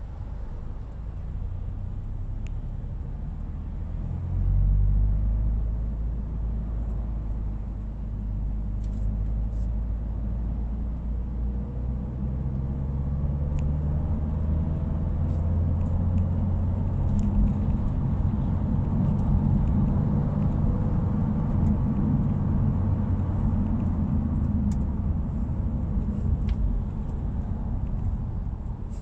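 Subaru WRX's turbocharged flat-four engine and exhaust while driving, a steady low rumble whose pitch climbs through the middle as the car speeds up.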